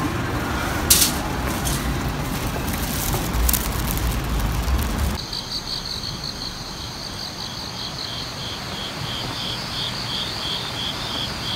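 Street noise with a sharp click about a second in and a low rumble, then, after a sudden change, an insect chirping in a steady pulse of about three chirps a second.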